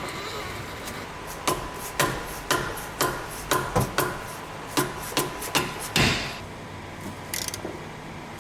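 Repeated sharp knocks from a hand tool working on the power steering pump's mounting and tensioner, about two a second for some four seconds, then stopping.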